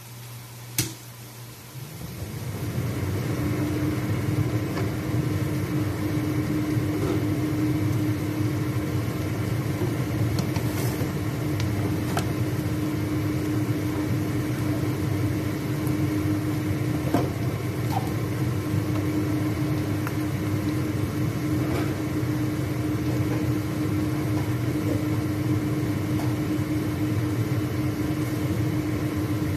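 A click, then an electric kitchen appliance motor starts about two seconds in and runs steadily with a low rumble and a constant hum, over onions frying in oil.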